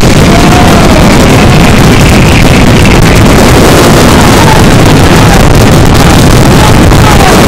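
Dense fireworks barrage at close range, the bursts and crackle merging into one continuous loud rush of noise that overloads the microphone. Faint whistles glide up and then down over it several times.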